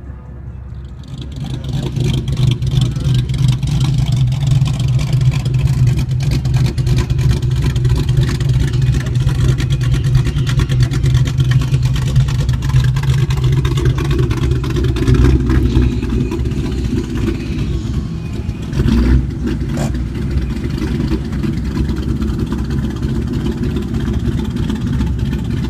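Ford Mustang engine idling loudly through its exhaust, a steady low-pitched running sound that sets in about a second in.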